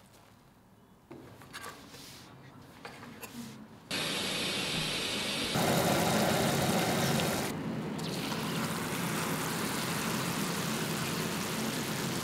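After a few quiet seconds with a few faint ticks, sugar syrup boils hard in a steel saucepan as a dense, steady bubbling hiss. After a brief dip, syrup ladled over a hot baked baklava sizzles and foams in its tray with an even hiss.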